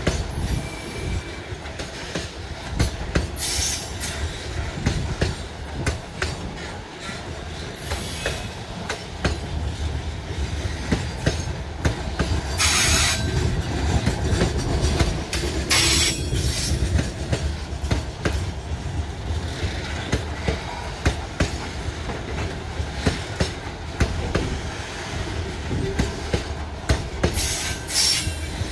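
Freight train of bauxite hopper wagons rolling past: a steady rumble with the clatter of wheels knocking over rail joints, and a few brief high-pitched wheel squeals along the way.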